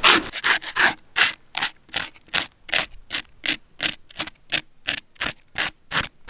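Scales being scraped off a large fish in quick, even strokes, about three a second.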